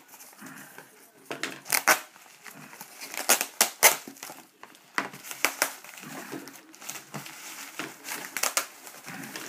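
Scissors cutting open cardboard packaging, with crinkling and crackling as the cardboard and mailer are handled and folded back: an irregular string of sharp snips and crackles.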